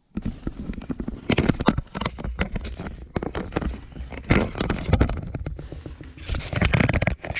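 Dryer vent parts being handled and fitted by hand: loud crinkling and scraping with many sharp clicks, in several louder bursts.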